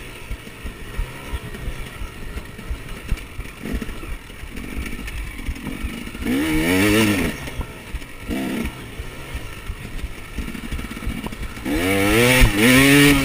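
KTM 300 EXC's single-cylinder two-stroke engine under way on a dirt track. It stays low for the first six seconds, with scattered knocks. It then revs up and down about six seconds in, blips once near eight seconds, and revs loudly near the end.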